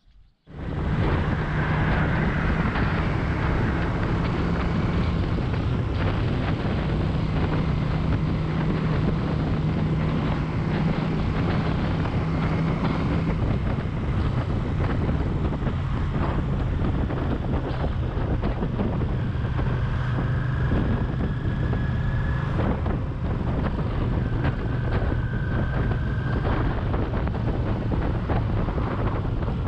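Motorcycle engine running steadily on the move, with wind rushing over the microphone; it starts abruptly about half a second in.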